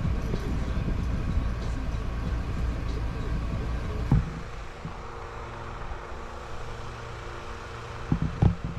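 Golf cart driving with a steady low rumble, which drops to a quieter hum after a knock about four seconds in; a couple of sharp knocks near the end.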